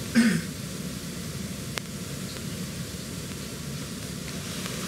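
Steady hiss of room-microphone noise in a quiet bedroom, with a brief murmured voice sound just after the start and a faint click a little later.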